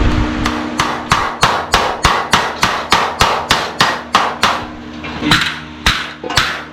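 Hammer blows struck in quick succession, about three a second, then slowing with a brief pause before a few more blows near the end.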